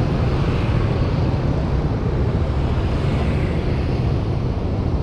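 City street traffic: motorbikes riding past over a steady low rumble.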